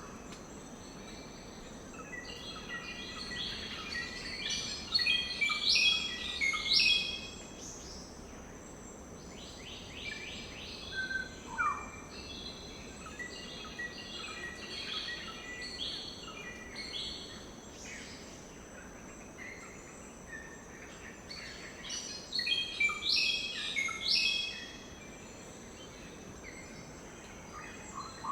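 Birds chirping in clusters of quick, falling notes, in several bursts with quieter gaps, over a steady high insect drone and a soft background hiss.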